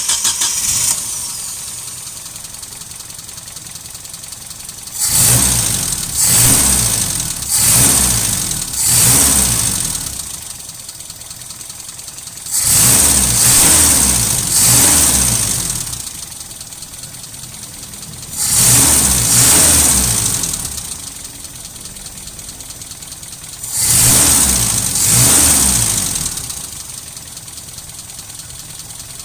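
Mitsubishi 4G33 four-cylinder carbureted engine catching and idling, revved up and let fall back to idle ten times in quick pairs, with four in a row the first time. It is being run up while its ignition timing is set by ear.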